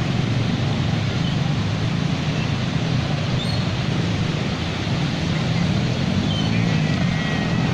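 Cars driving through floodwater on a street: a steady rush of engines and water pushed aside by the tyres.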